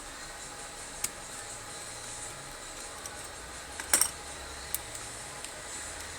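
Light clicks and taps of small phone parts and tools being handled during a phone teardown, the loudest a quick cluster of clicks about four seconds in, over a steady low background hiss.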